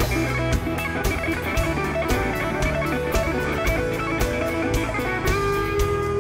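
Live country band playing an instrumental break: electric guitar lead over bass and a steady drum beat.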